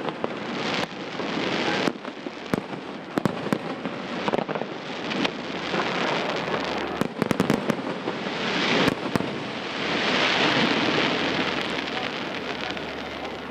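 Aerial fireworks going off: a rapid run of sharp bangs and cracks, then a dense crackling hiss that swells about ten seconds in and slowly fades.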